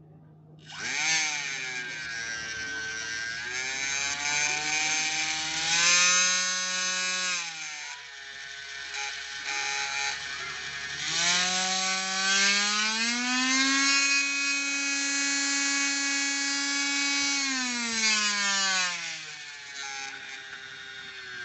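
Small brushless electric motor driving a miniature model diesel engine, a whine that spins up about a second in and holds. It slows down around seven seconds in, spins up again a few seconds later to a higher steady speed, then winds down near the end.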